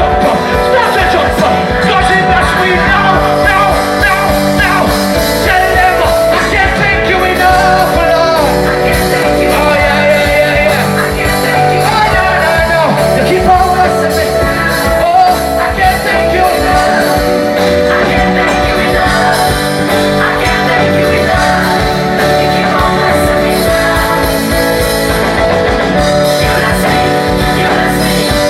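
Live band playing a gospel song, with a lead voice singing over bass, drums and guitar.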